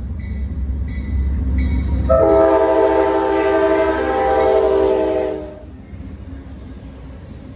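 Amtrak GE P42DC diesel locomotives rumbling past at a grade crossing. A Nathan K5LA five-chime air horn sounds one long chord from about two seconds in until a little past five seconds. Before the horn, a crossing bell dings steadily, and the rumble drops off once the locomotives have gone by.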